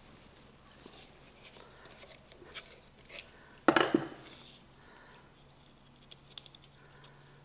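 Small clicks and scrapes of a screwdriver working a brush cap on a circular saw's motor housing. Then a short, loud clatter as the screwdriver is set down on the workbench, about three and a half seconds in. A few light clicks follow near the end as the brush cap is worked by hand.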